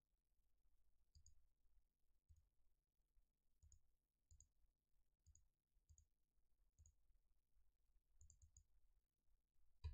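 Faint computer mouse clicks, about ten spread irregularly, a few in quick pairs and a triple near the end, over near-quiet room tone.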